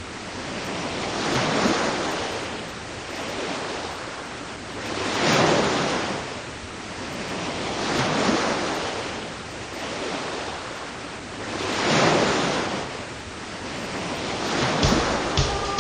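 Ocean surf: waves breaking and washing in, swelling and fading about every three to four seconds.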